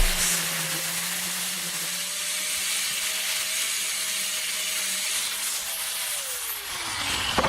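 Small electric power tool running steadily with a hiss, its whine dropping in pitch near the end.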